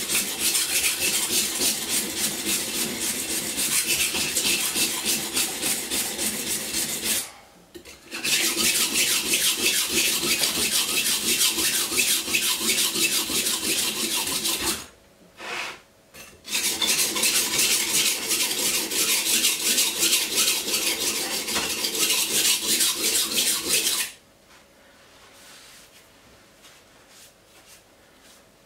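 A large steak knife's blade rubbed flat on a bench stone in fast back-and-forth rasping strokes, thinning the blade behind the edge. The strokes pause twice briefly and stop a few seconds before the end.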